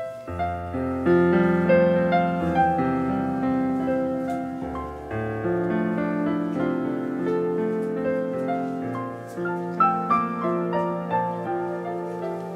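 Piano music: chords and a melody of held, decaying notes.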